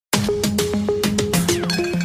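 Upbeat background music with a fast steady beat and a stepping bass line, with a falling swoop near the end.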